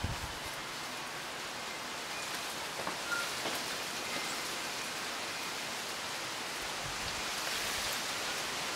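Wind blowing through native bush, palm fronds and bamboo: a steady rustling hiss of leaves that swells a little toward the end.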